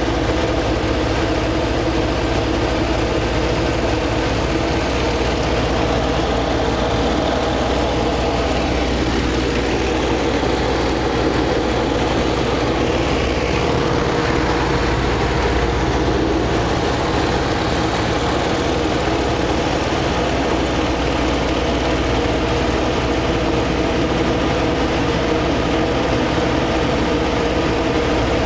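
Radial engine and propeller of a Yak aerobatic trainer droning steadily in cruise flight, heard from inside the cockpit.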